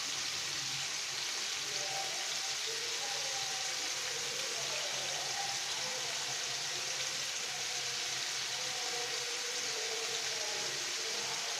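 Cubes of chicken breast frying in hot oil in a pan, giving a steady, even sizzle.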